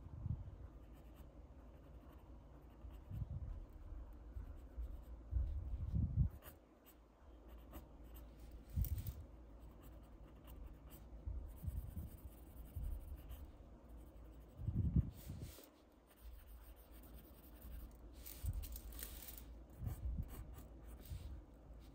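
Pencil sketching on paper: short, irregular strokes and rubs of the lead with brief pauses between them.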